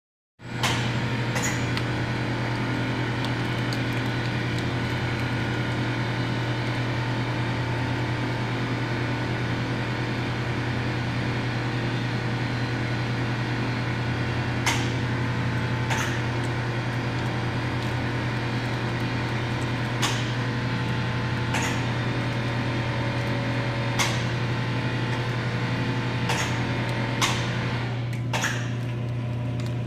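Steady, loud machine hum with a strong low tone, with sharp clicks or knocks at irregular intervals, more of them in the second half, while a large red maple log is slowly rolled on a strap.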